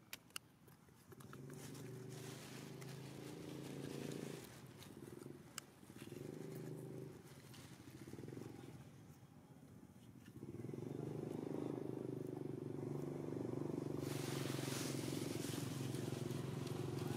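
A motor running with a low, steady hum made of several steady tones. It comes and goes during the first ten seconds, then holds steady, and a hiss joins it about three seconds before the end. Two sharp clicks come within the first second.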